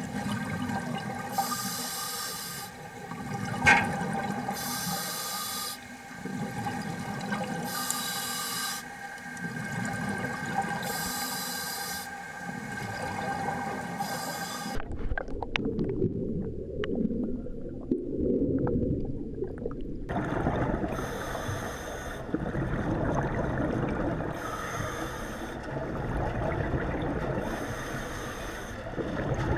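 Underwater sound of divers breathing: exhaled air bubbles out of their breathing gear in hissing bursts about every two seconds, over a steady hum, with one sharp knock a little under four seconds in. About halfway the bursts give way to a low rushing of water for several seconds, then the bubbling breaths resume.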